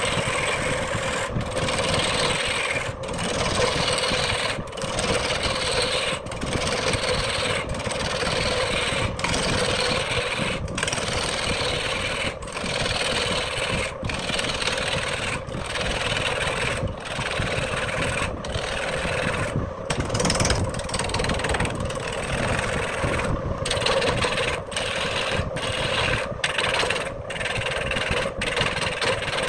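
Wood lathe turning: a hand-held turning tool cuts a spinning wood blank with a steady rasping, shaving noise over the low running of the lathe. The cutting breaks off briefly about every second and a half, and the breaks come faster near the end.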